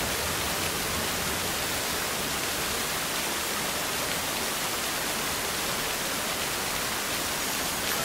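Waterfall pouring down a rock wall into a pond: a steady, even rushing of falling water.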